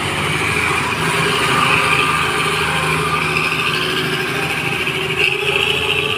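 Loaded diesel truck driving slowly past up close, its engine running with a steady low drone.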